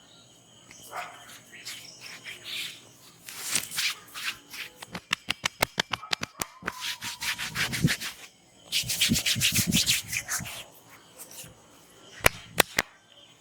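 Hands rubbing and massaging over hair and skin, in bursts of scratchy swishing. About five seconds in comes a quick run of light taps, and near the end three sharp clicks.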